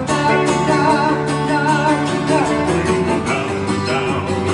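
Upbeat children's song with guitar and other instruments playing between sung lines, a wavering melody line over the band in the first half.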